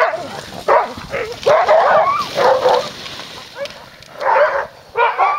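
Husky-type sled dogs barking and yelping in repeated bursts, with a longer run of calls in the middle.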